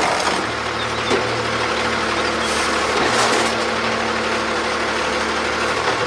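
Automated side-loader garbage truck running steadily with an even engine hum while its hydraulic side arm lifts a trash cart.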